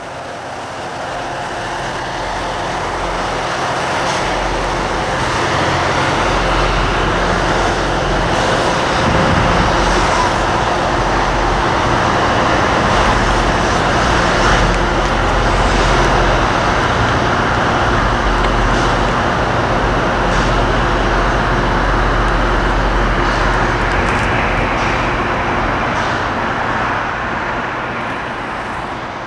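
Loram rail grinder at work: a loud, steady grinding roar over the low drone of its diesel engines. It swells over the first few seconds and eases off a little near the end.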